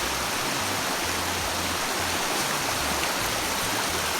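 Steady rush of flowing river water, with irregular low rumbles underneath.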